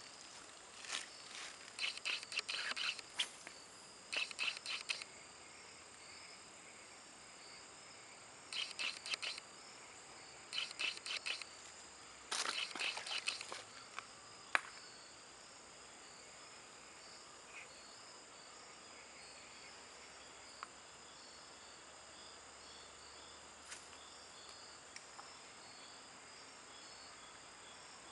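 Insects chirping in a steady, high, even chorus, with several short bursts of rapid clicking in the first half from a spinning reel being cranked during a lure retrieve, and one sharp click about halfway through.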